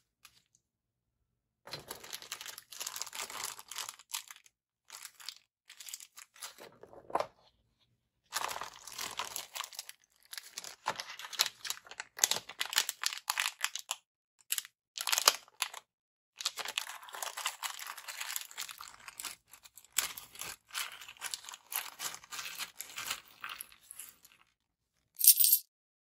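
Plastic packaging crinkling and tearing in irregular handling bursts with short pauses, as starter-kit components are unpacked. A brief, loud, high hiss comes near the end.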